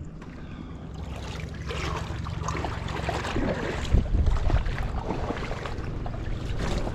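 Wind buffeting the microphone with a low rumble, over rushing, splashing river water that grows louder from about a second in.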